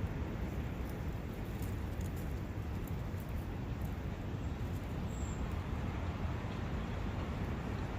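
Steady forest ambience of wind and a running brook, a dense even rush weighted toward the low end. A faint short high chirp comes about five seconds in.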